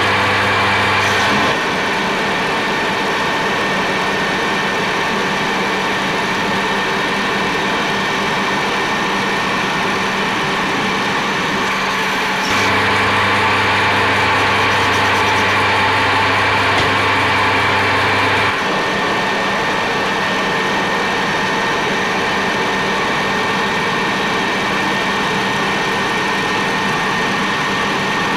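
Metal lathe running under power feed, turning a steel shaft with an insert cutting tool: a steady machine hum and whine with the hiss of the cut. A deeper low hum drops out about a second and a half in, comes back for several seconds mid-way, then drops out again.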